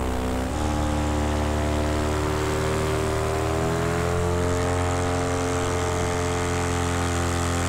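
A Macfly paramotor's two-stroke engine and propeller running steadily in flight, its pitch rising slightly about four seconds in.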